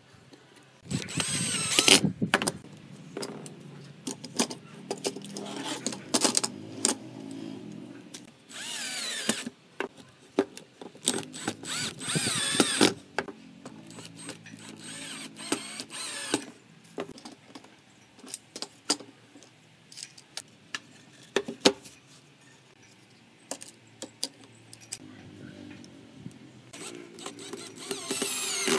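Cordless drill-driver driving screws through small metal hinges into pine frames, the motor whining in several short bursts of about a second each. Between the bursts come sharp knocks and clicks of wood and hardware being handled.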